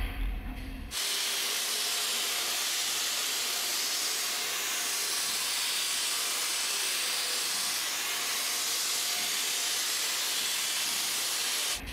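Steady hiss of robotic wire-guided laser welding on a car-body bulkhead, sparks spraying from the seam. It starts suddenly about a second in and cuts off suddenly near the end.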